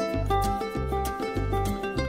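Background music with a steady pulsing bass beat and a melody of short pitched notes.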